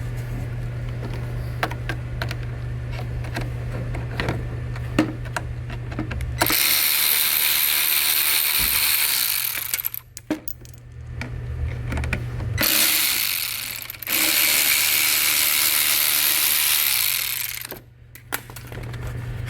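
Tool work on a car headlight's mounting bolts: a run of small ratchet-like clicks, then two long stretches of loud, even whirring noise, about three and five seconds long, with a short pause between.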